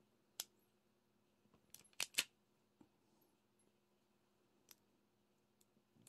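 A few small, sharp plastic clicks: one about half a second in, a quick run of three around two seconds, and two fainter ones later. They fit resin drills being picked up and pressed onto a diamond painting canvas with a drill pen.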